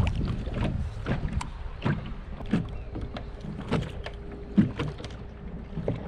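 Small waves lapping and slapping against a kayak's hull in irregular knocks about once a second, over a steady low wind rumble on the microphone.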